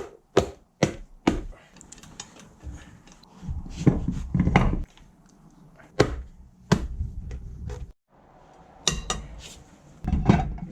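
Hands-on work with tools and parts: a run of sharp knocks and clanks, with stretches of low rumbling, scraping handling noise between them.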